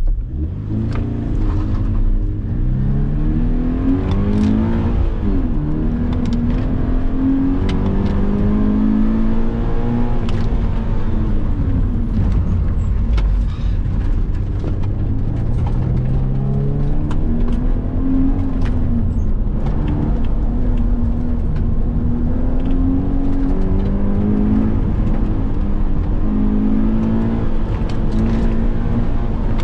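Subaru BRZ's 2.0-litre flat-four engine heard from inside the cabin while it is driven hard through an autocross course. The engine revs up and down again and again, its pitch rising under throttle and falling off as the driver lifts, over a steady low road and tyre rumble.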